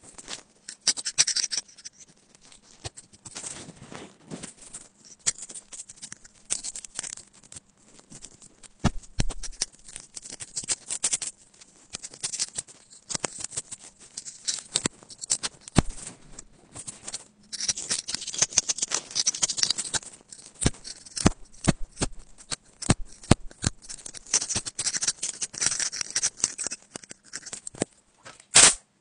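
A pick scraping and prying packed lint out of a USB-C phone charging port: dense, irregular runs of small scratches and clicks. There is one loud sharp click near the end.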